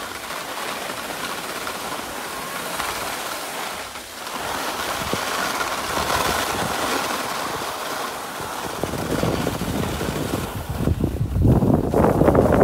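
Skis sliding over packed snow with a steady surf-like hiss, joined from about nine seconds in by louder, rough wind noise on the microphone that grows toward the end.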